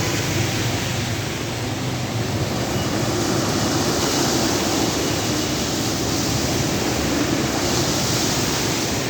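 Steady rushing water noise with no distinct events, from rain and floodwater.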